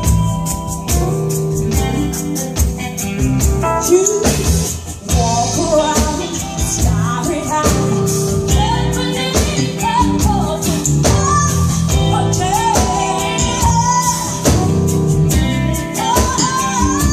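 Live band playing a song, with drum kit and electric guitar under a group of lead and backing singers, over a steady beat.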